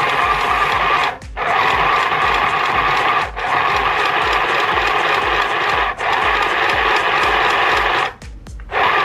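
A small two-speed mini sewing machine stitching fabric: its little motor and needle mechanism run with a fast, even rattle, stopping and restarting briefly several times as the fabric is guided.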